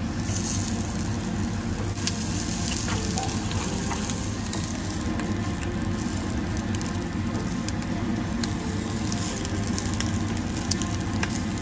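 Slices of roast beef frying in hot oil in a frying pan: a steady sizzle with scattered crackles.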